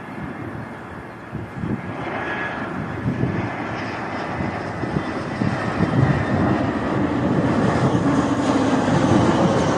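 Jet airliner on landing approach passing low overhead, its engines a steady rushing drone that grows louder as it comes nearer.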